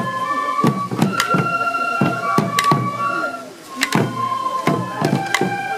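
Festival lion-dance music: Japanese bamboo transverse flutes play held notes that step from pitch to pitch, over sharp, irregular drum strikes. The music dips briefly about three and a half seconds in.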